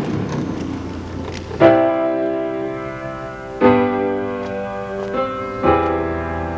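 Slow, soft background music: piano-like keyboard chords struck about every two seconds, each ringing on until the next.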